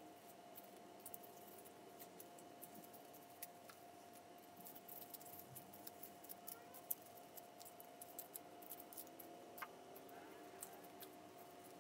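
Faint, irregular small clicks and ticks of hand baking work with dough and utensils, over a steady faint hum.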